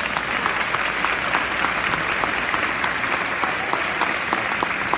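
Audience clapping steadily in a large hall, many hands at once.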